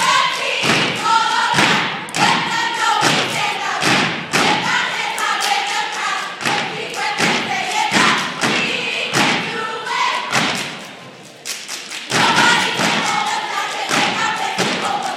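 A step team stomping and clapping in a fast, steady rhythm while chanting in unison, with a short drop-off about eleven seconds in.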